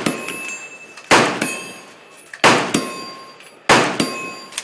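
Gunshots in quick succession, three loud ones about 1.3 seconds apart and a fainter one near the end. Each shot is followed by a metallic ringing tail.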